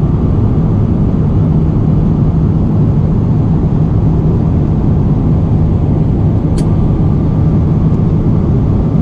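Airliner cabin noise in flight: a steady low rumble of engines and airflow, with one faint click about two-thirds of the way through.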